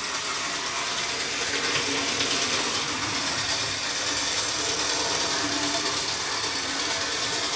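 Small electric motor of a Lima 0-6-0 model locomotive running slowly on its track, a steady hum with its wheels running on the rails.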